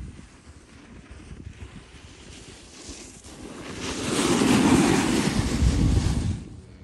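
Snowboard edges scraping over packed snow, with wind buffeting the microphone. It swells loud about halfway through as a rider carves past close by, then drops off sharply near the end.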